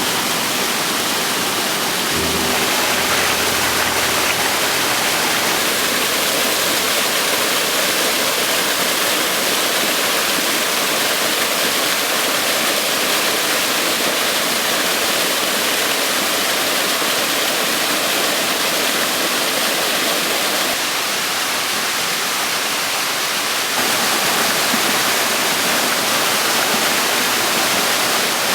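Steady rush of water falling over a small waterfall, a dense even splashing that goes on without a break.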